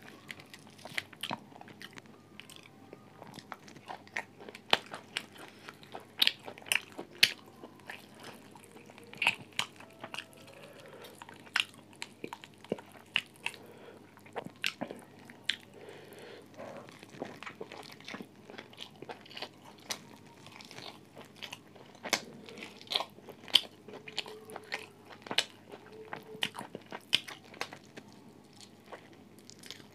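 A person chewing and biting food close to a mobile phone microphone, with many irregular sharp crunches and wet mouth clicks.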